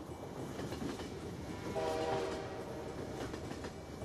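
Train passing with a steady rumble; its horn sounds briefly about two seconds in.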